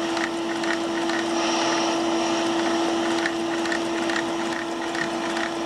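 Electric air/vacuum pump running with a steady hum over a hiss, loud enough that it is wished quieter, as it powers a Lego beam engine through a hose.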